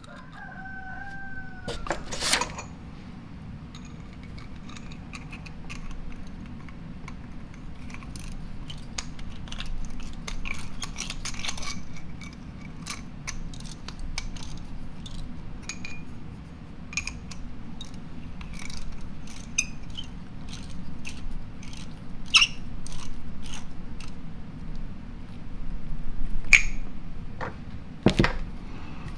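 Small metal parts clicking and tapping as the air inlet of an Ingersoll-Rand 2850MAX air impact is put back together by hand: check ball, spring, and screen with retainer. Scattered clicks run over a steady low hum, with a louder knock near the end.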